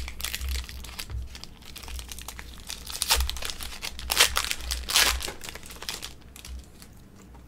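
Foil Pokémon booster pack wrapper crinkling as it is torn open and handled, with the loudest crinkles about three to five seconds in and dying down near the end.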